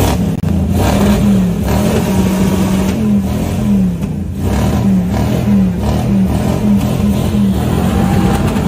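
Car engine revved hard and held at high revs, its pitch dipping and rising again every half second or so.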